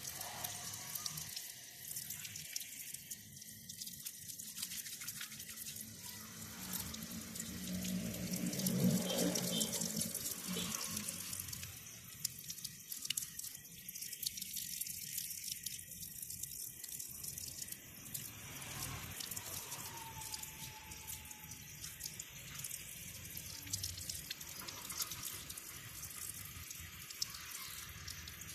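Running water splashing over a paint brush and a stone surface as hands rub and rinse the bristles, with dripping and spattering. It swells louder for a couple of seconds about a third of the way in.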